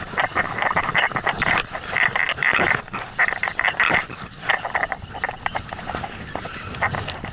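Rapid, uneven squeaking clicks, several a second, from a jigging rod and reel being jerked and wound in one-pitch jigging, with a fish hooked partway through.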